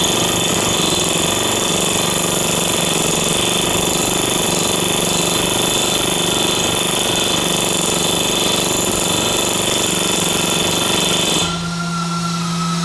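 Power tool running continuously at full speed, then stopping abruptly about eleven and a half seconds in.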